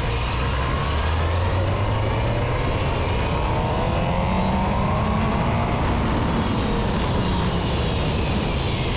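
Suzuki GSX-R750's inline-four engine running while the bike is ridden, heard from on board with wind rush. The engine note climbs through the middle and then eases back.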